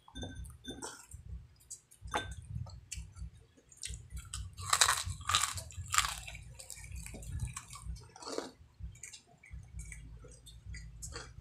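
Crunching and chewing of crispy fried chicken skin: a run of sharp crackly bites, loudest from about four and a half to six seconds in.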